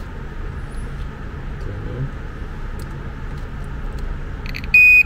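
LED reverse-light bulb's built-in buzzer sounding as its base is touched to a small 12 V battery: a few crackling contact clicks, then one loud, high-pitched beep just before the end, the first of a repeating beep. A steady low hum runs underneath.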